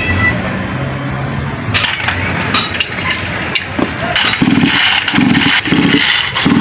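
Petrol chainsaw being pull-started: several quick yanks of the recoil starter rope turn the engine over in short bursts in the last two seconds, after some clinks and knocks of handling metal parts.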